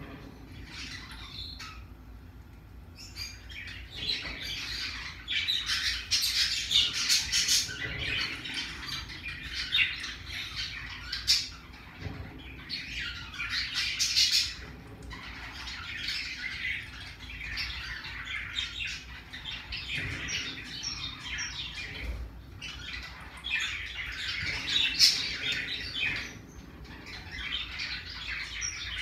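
Pacific parrotlet chattering in raspy bouts of chirps and squawks, with a few sharp clicks mixed in.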